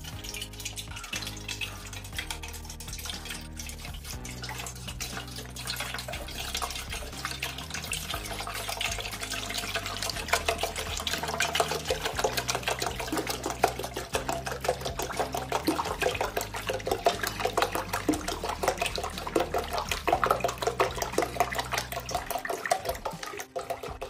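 A stream of water poured from a plastic jug into a stainless steel pot, splashing steadily and growing louder as the pot fills.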